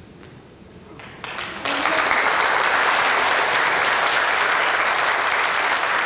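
Church congregation applauding: a few scattered claps about a second in, quickly swelling into full, steady applause.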